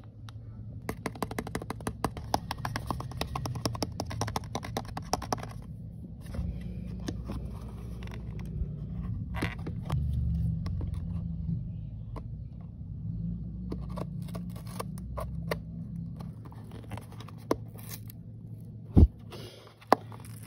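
Fingers handling a small cardboard blind box: a quick run of clicks and scrapes for the first few seconds, then scattered scratching and rubbing over a low handling rumble, with one loud thump shortly before the end as the top flap is worked open.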